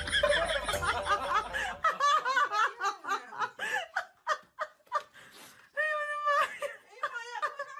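A person laughing in short, repeated bursts of giggles and snickers, with a longer held laugh about six seconds in.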